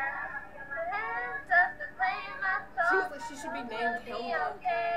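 Teenage girls' voices singing in a loose, casual way, with some notes held and bits of talk mixed in.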